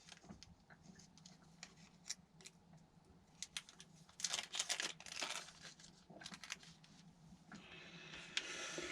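Faint crinkling and rustling of plastic packaging being handled, with scattered small clicks, louder for a second or so around the middle.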